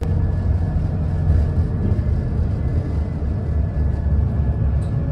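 Steady low rumble of a moving bus or tram heard from a seat inside, with a faint steady high whine.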